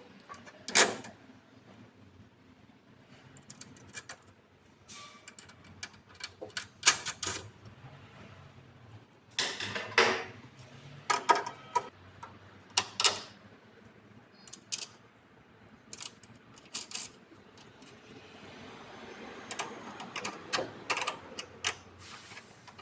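Irregular sharp metallic clicks and clinks of tools and cable hardware as battery cables are fastened onto a hybrid inverter's positive and negative input terminals.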